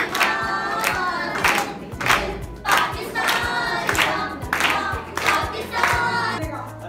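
A group of girls singing together in a hall, with hand claps keeping a steady beat about every half second.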